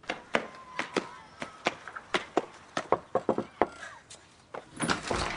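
Quick footsteps of hard-soled shoes on a cobbled street, about two to three steps a second, stopping after about three and a half seconds. Near the end comes a brief, louder rattle of a front door being opened.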